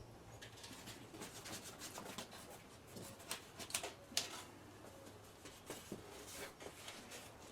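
Faint, irregular small clicks and rubbing of a car's plastic front bumper cover and its foam absorber being handled and fitted together.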